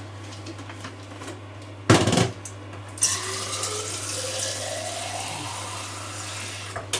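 Kitchen tap turned on and running water into a glass jar; the pitch of the filling rises slightly as the jar fills. A sharp knock comes about two seconds in, just before the water starts.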